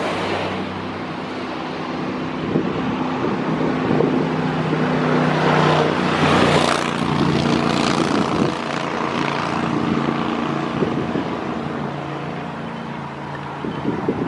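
Engine of a passing motor vehicle, a steady drone that grows louder toward the middle and then fades away.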